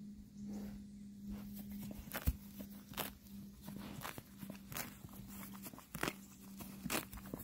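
A horse grazing close by, tearing off grass and chewing it in irregular crisp crunches and rips, over a steady low hum.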